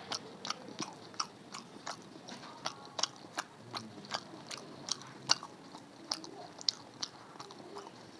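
A person chewing a rice-and-curry meal close to the microphone: steady wet mouth clicks and smacks, about three a second.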